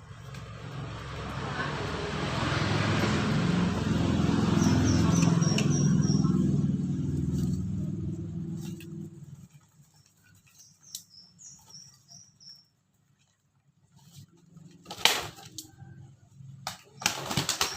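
A motor vehicle passes: its engine swells up and fades away over about nine seconds. A small bird chirps a quick run of high notes twice, and a few sharp knocks come near the end.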